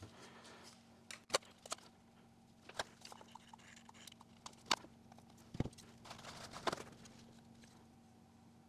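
Quiet handling of a manual caulking gun: a scattered series of sharp clicks and knocks as a tube of caulk is loaded and the trigger worked, with a short soft rubbing sound about six seconds in.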